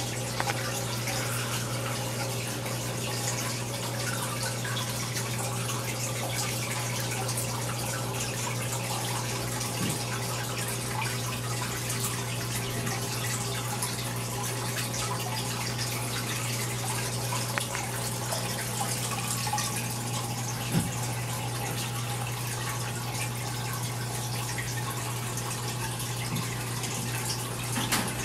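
Aquarium equipment running: water trickling and splashing steadily over a constant low hum, with a few faint ticks scattered through.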